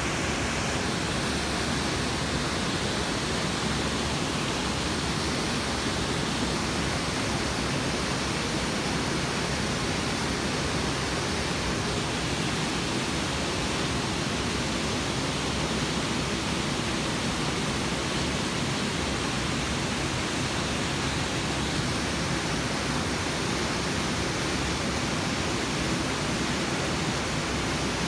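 Steady rush of a 25-foot waterfall and the rapids feeding it: a constant, even hiss of falling and churning water.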